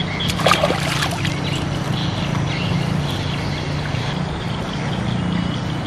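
Small boat engine running steadily with a low drone. Over it are a few light clicks and rustles of a wet cast net being handled, mostly in the first second.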